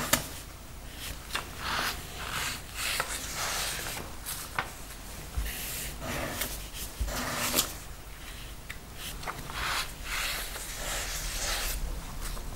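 Sheets of paper being handled by gloved hands: short rustling swishes as cards are slid and lifted, with a few sharp taps as they are set down.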